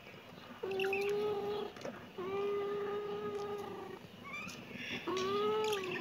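Kitten meowing: three long, drawn-out meows, each held at a nearly steady pitch for one to two seconds.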